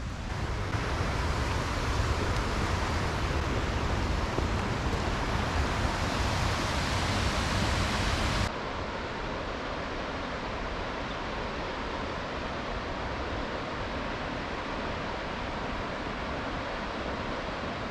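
Steady rush of flowing river water. About eight and a half seconds in the sound changes abruptly and becomes a little quieter and duller.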